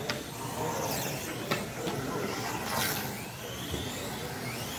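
Radio-controlled race cars running laps: high motor whines that rise and fall in pitch as the cars pass, swelling once near the middle, with a few sharp clicks.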